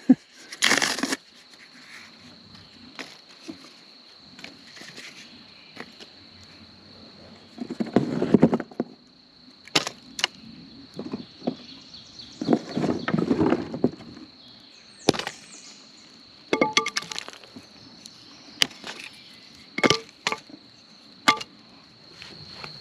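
Wooden offcuts and cardboard being dropped and laid onto smouldering coals to rekindle a stump fire: a string of sharp wooden knocks and clatters, with two longer, louder bursts about a third and halfway through. A steady high-pitched insect drone runs underneath.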